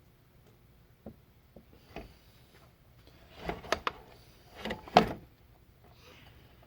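Workbench handling noise: a couple of light taps, then two short bursts of clattering knocks about three and a half and five seconds in, the second the loudest.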